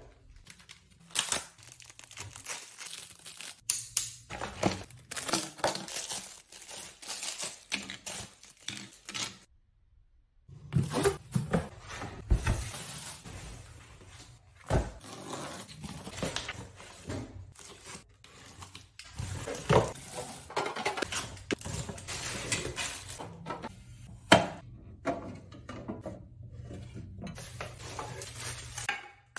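Unboxing sounds: cardboard shipping boxes being opened and handled, with packaging rustling and crinkling and irregular knocks and clatters of hard plastic items. The handling stops briefly about ten seconds in, then resumes.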